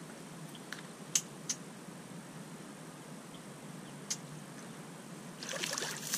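Steady outdoor background hiss with a few isolated sharp clicks in the first half, then, about five and a half seconds in, footsteps swishing and rustling through wet, marshy bank grass.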